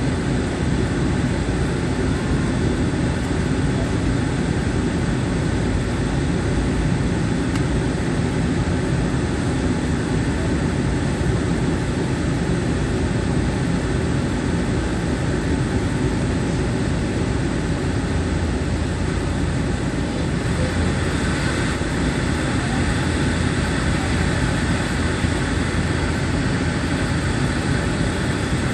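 Cabin noise of a Bombardier Dash 8 Q400 in flight: the steady drone of its Pratt & Whitney PW150A turboprop engines and propellers over the rush of air. The low drone grows a little stronger about twenty seconds in.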